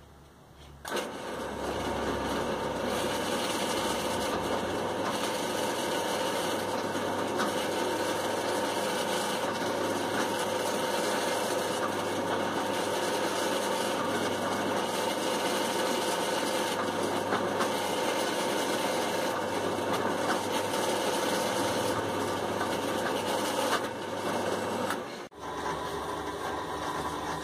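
Electric drill running steadily with a constant whine while boring holes in Corian blocks for ferro rod handles. It starts about a second in and cuts off abruptly near the end before a quieter machine sound resumes.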